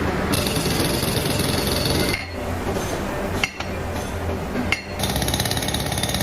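Metalworking factory machinery noise in several short cut-together shots: a dense clatter with high metallic tones, then duller running noise with two sharp knocks, then a fast, even rattle near the end.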